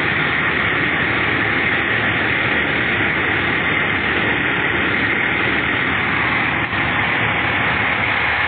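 Fire truck's diesel engine running steadily at idle, heard close beside the cab as a constant loud hum and rush.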